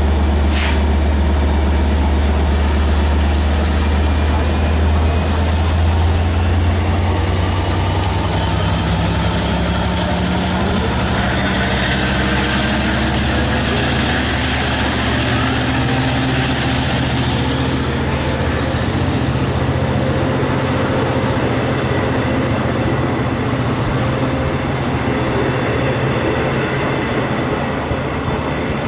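Diesel locomotive of a Long Island Rail Road commuter train running with a steady low engine drone. The engine pitch shifts about halfway through.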